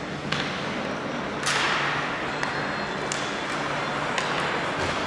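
Ice hockey play echoing in a large, mostly empty rink: several sharp clacks of sticks on the puck, and about a second and a half in a louder, longer scrape of skate blades on the ice that fades over half a second, over a low steady hum.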